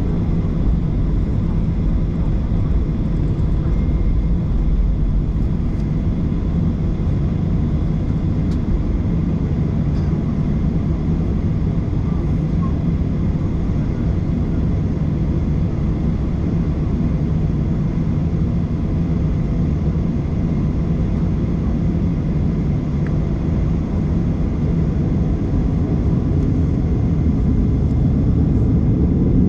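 Steady low drone of an airliner's jet engines and airframe heard inside the cabin while the plane taxis, growing slightly louder near the end.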